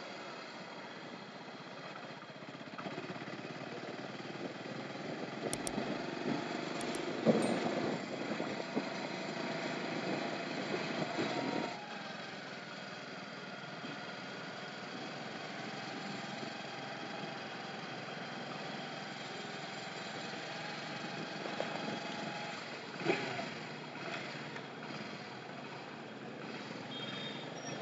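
Motorcycle running on a ride through city streets, with road and traffic noise. It is louder for several seconds, then drops about twelve seconds in to a steadier, quieter run.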